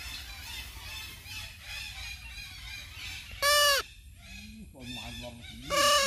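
A parrot squawking: a loud, harsh call about three and a half seconds in and another near the end, over faint, quickly repeated chirps.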